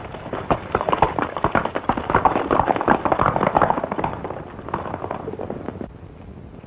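Hoofbeats of two horses galloping away on a dirt track, a rapid, irregular clatter. It is loudest in the middle, fades, and then stops abruptly near the end.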